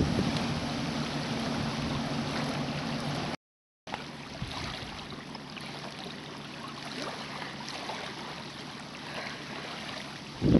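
A boat engine's steady low hum over wind and choppy river water for about three seconds. The sound then drops out briefly, and softer water lapping with wind follows.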